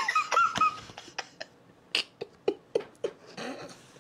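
A man laughing hard: a few high, squeaky laugh sounds at the start, then quieter breathy gasps and short clicks as the laughter trails off.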